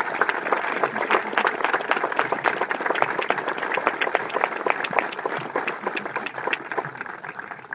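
Audience applauding, many hands clapping together; the clapping thins out at the end.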